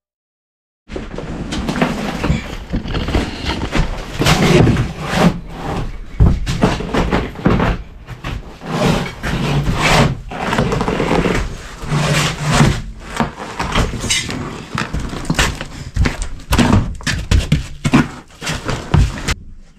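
Old carpet being ripped up off a bus's wooden floor: irregular tearing, scraping and rustling with dull thumps, starting about a second in.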